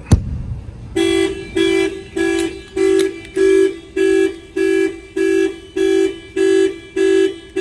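A sharp knock on the car window sets off the newly installed Clifford alarm's shock sensor. About a second later the alarm starts pulsing the Nissan GT-R's horn, eleven even honks at a steady pitch, about one every 0.6 seconds.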